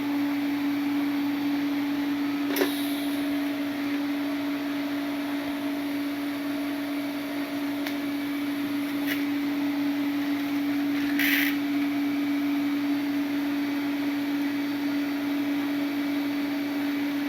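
A steady machine hum with a hiss, with a few short clicks and a brief hiss burst about eleven seconds in.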